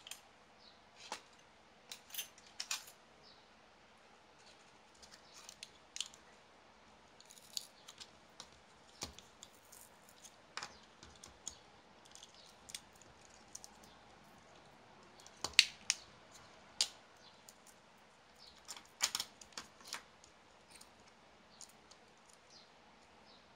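Scattered light clicks and taps of small plastic parts and wires being handled as a 1/28 scale RC car chassis is taken apart by hand, with a cluster of sharper clicks about two-thirds through.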